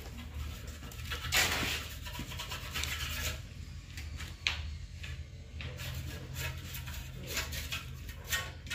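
Intermittent scraping and rubbing noises, loudest about a second and a half in, over a steady low hum.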